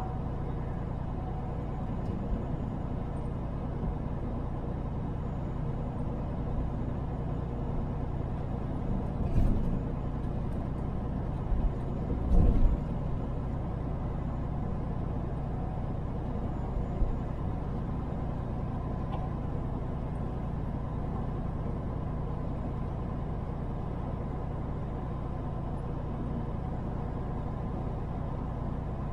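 Semi truck driving on the road: steady engine and road rumble, with two brief thumps about a third of the way in, a few seconds apart.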